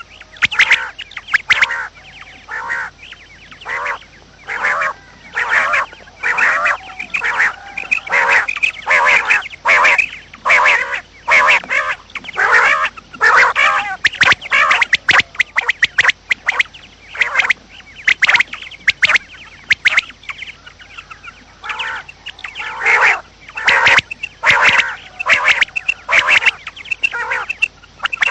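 Common quail calling over and over in short, sharp notes, with brief gaps between the phrases. This is the kind of quail call played as a lure when hunting quail.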